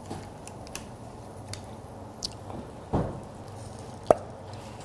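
Tabletop handling sounds at a grill table: light clicks of metal lamb skewers on the grill rack, a short dull knock about three seconds in, and a sharp ringing clink a little after four seconds, all over a steady low hum.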